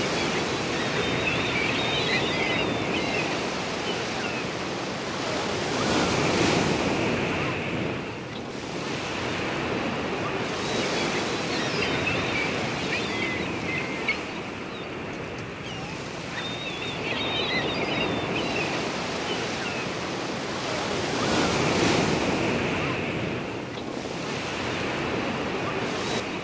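Small waves breaking and washing up a sandy shore, the rush swelling with each wave every few seconds.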